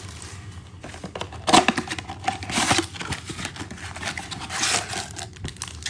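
Cardboard trading-card box being opened by hand: scraping and rustling of the cardboard flap and lid, in uneven bouts, loudest about a second and a half in.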